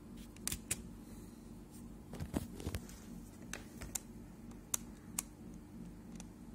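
Computer pointer-button clicks on a laptop: a handful of short sharp clicks at irregular spacing, with a small cluster a little over two seconds in, over a steady low hum.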